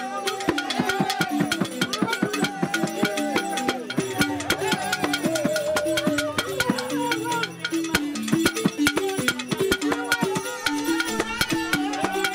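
Dagara gyils, wooden xylophones with gourd resonators, playing bine funeral music in a fast run of mallet strikes. A calabash drum (kuor) struck by hand keeps time underneath.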